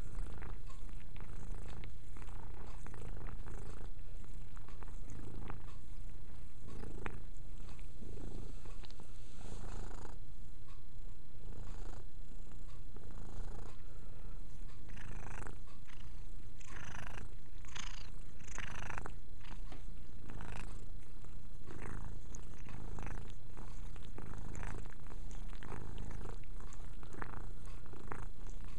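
Calico cat purring steadily close to the microphone, with short repeated licking sounds as she grooms her fur, thickest about halfway through.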